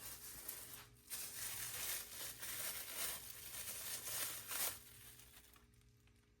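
Cardboard and foam packaging being handled and pulled about, a rustling, scraping noise. It dips briefly about a second in and stops about two-thirds of the way through.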